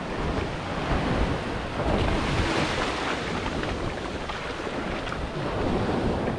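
Sea waves washing up the beach, with wind buffeting the microphone; the wash swells about two seconds in.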